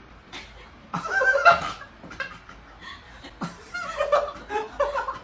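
People laughing and chuckling in short bursts, about a second in and again near the end.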